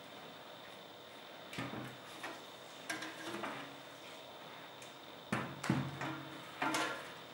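Sheet-metal optical fiber distribution frame box being handled and turned on a tabletop: a few short knocks and scrapes, the loudest a pair of knocks about five and a half seconds in and another near the end.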